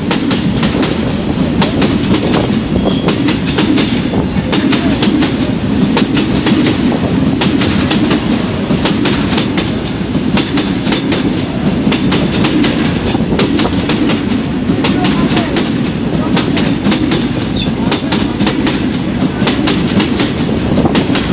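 Long freight train of covered box wagons rolling past close by: a steady loud rumble of steel wheels on rail, with frequent sharp clicks throughout.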